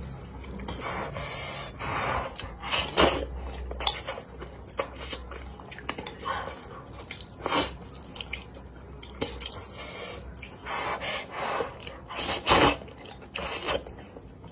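A person slurping and chewing wide noodles in a spicy sauce, with wet mouth sounds and a few louder slurps spread through.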